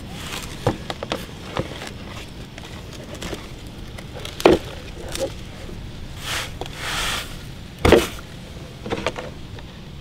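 Plastic toy dump truck handled in soil: scattered clicks and knocks of its plastic dump bed, with two louder knocks about four and a half and eight seconds in, and a brief rustle of soil sliding from the tipped bed between them.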